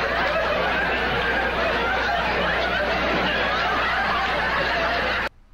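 Studio audience and cast laughing hard and without a break, heard through an old 1970s TV recording; it cuts off suddenly near the end.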